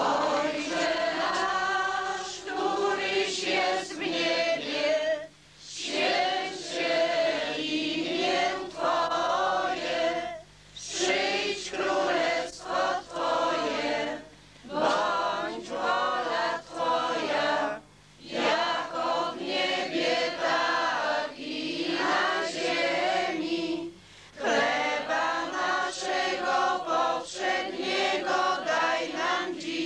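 A crowd singing a hymn together, women's and men's voices mixed, in long lines with short breaths between them.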